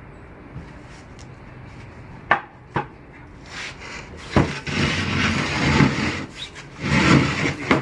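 Two sharp knocks, then a heavy piece of furniture dragged across the floor, scraping loudly in long rough strokes from about halfway in.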